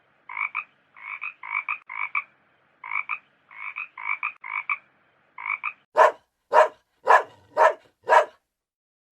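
A frog croaking in short double-pulsed calls, about ten of them over the first five seconds. Then a dog barks five times, about two barks a second, louder than the croaks.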